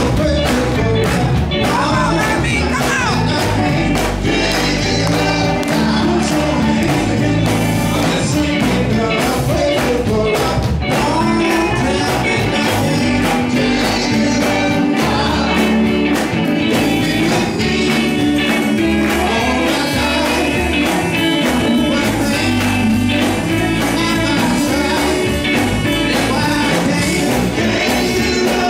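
Live gospel group singing through microphones, several voices together, backed by electric guitar and drums, loud and continuous.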